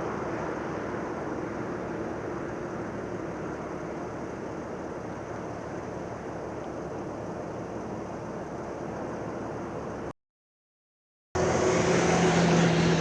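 Steady rumble of engines, cut off by about a second of dead silence about ten seconds in, then a louder engine drone with a steady low hum.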